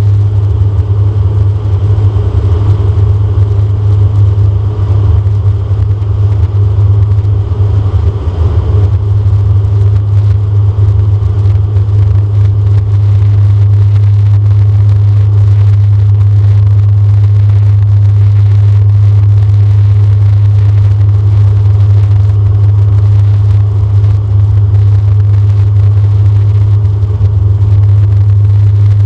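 DHC-8-Q400's Pratt & Whitney PW150A turboprop and six-bladed propeller heard from inside the cabin: a loud, steady low drone with rushing airflow noise, the airliner on approach with its landing gear extended.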